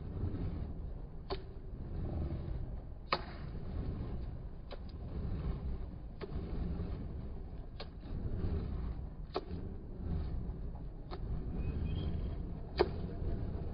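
Slowed-down sound of juggling three burning fire torches: a steady low rumble from the flaming torches, with a sharp click about every second and a half as a torch is caught, one near the end the loudest.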